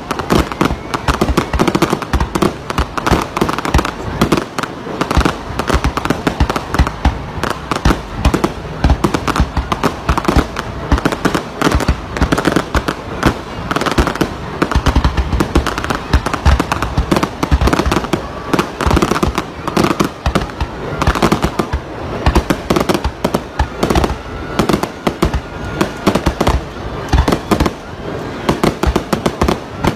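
Fireworks display: a dense, continuous barrage of rapid bangs and crackling from aerial shells bursting overhead.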